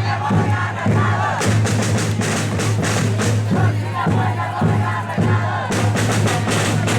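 Loud music with a drumbeat and voices, over a steady low hum.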